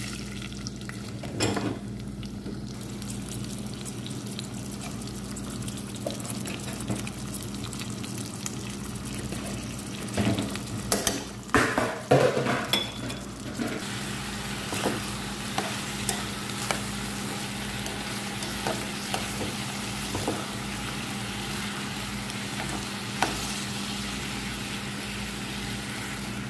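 Rice sizzling as it fries in hot oil in a non-stick pot, with a metal spoon stirring and scraping through the grains; the stirring is heaviest about ten seconds in.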